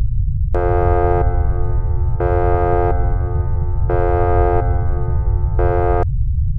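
A continuous deep rumble, with an electronic synthesized tone over it from about half a second in. The tone switches between a brighter and a duller sound about every second and stops about six seconds in.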